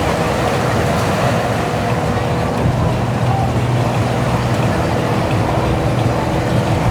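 Motorboat engines running steadily under a broad rush of water, with a constant low hum.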